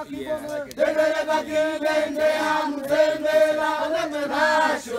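A group of Hadza people singing a chant together in long held notes, pausing briefly just before a second in.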